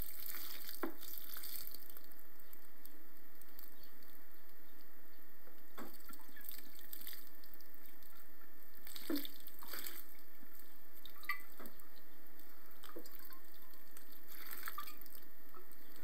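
Water from a plastic bottle dripping and splashing onto damp soil in a worm box: a few separate drops over a steady hiss.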